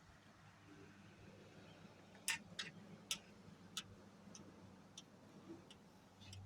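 Near silence broken by a few sharp clicks and taps: four distinct ones between about two and four seconds in, then a few fainter ones.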